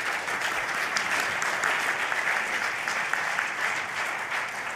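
Audience applauding steadily in a hall at the end of a talk.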